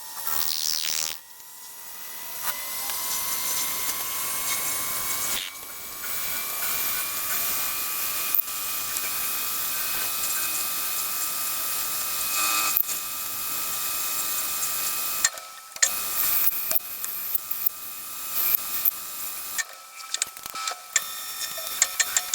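A machine tool cutting metal: a steady high whine with a second tone above it over a hissing cutting noise. The whine rises slightly in pitch over the first several seconds, and the sound breaks off briefly a few times. In the last few seconds it gives way to irregular clicks and ticks.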